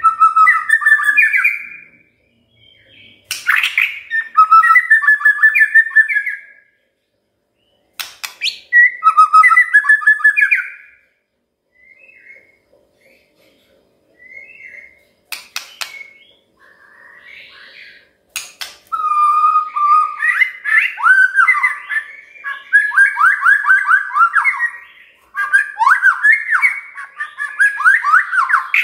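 White-rumped shama (murai batu) singing loud whistled phrases broken by short pauses, with sharp clicks before several of them. About two-thirds of the way through, the song turns into a long, fast run of repeated down-slurred whistles.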